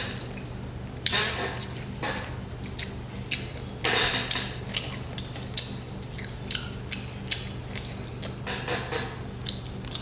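A person eating grilled chicken: chewing and tearing the meat, with scattered small clicks and two short rustling bursts about one and four seconds in, over a steady low hum.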